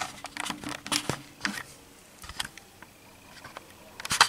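Fingers touching and fumbling with the recording device right at its microphone: a run of sharp clicks and knocks, a quieter pause, then a louder knock and rub near the end.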